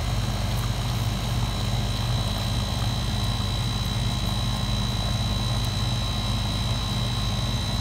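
Split-system air-conditioning condensing unit running: the compressor and condenser fan make a steady low hum with a thin high tone above it.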